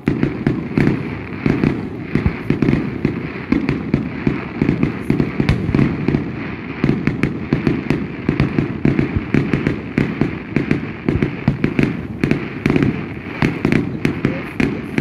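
Aerial fireworks going off in rapid succession: a dense, continuous run of bangs and crackles, many a second, that starts suddenly.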